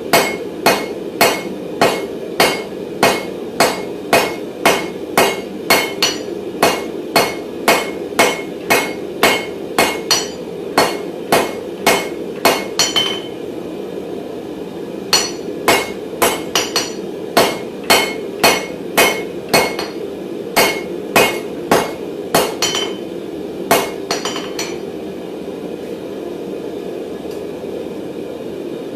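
Small hand hammer striking hot mild steel bar on an anvil in quick, light blows, about three a second, each with a short metallic ring. The strikes pause for about two seconds near the middle and stop a few seconds before the end, leaving a steady rushing background noise.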